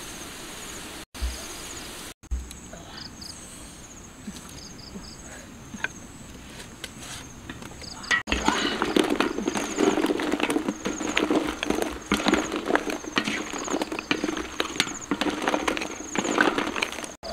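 Duck eggs clattering and water splashing in a large iron wok of boiling water as the eggs are stirred and scooped out with a wicker basket, a dense run of knocks starting about eight seconds in. Crickets chirp throughout in a steady high pulsing trill.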